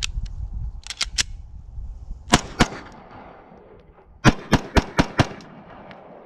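Glock 17 9mm pistol fired seven times: two shots, a pause of under two seconds, then five rapid shots, as a water-soaked magazine feeds every round. Two light metallic clicks come about a second in, before the first shot.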